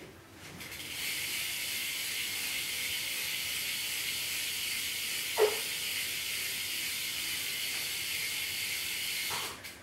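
Salt rear hub of a BMX bike freewheeling as the back wheel spins, giving a steady high-pitched buzz that starts about half a second in and stops near the end. One short knock comes a little past halfway.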